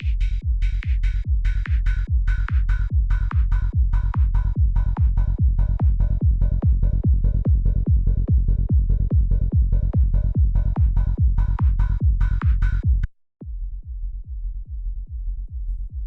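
Psytrance kick drum and bass playing back in a loop, a fast, steady, driving beat with a synth layer in the mids. About 13 seconds in it cuts out suddenly for a moment and comes back with only the kick and bass, the higher parts gone.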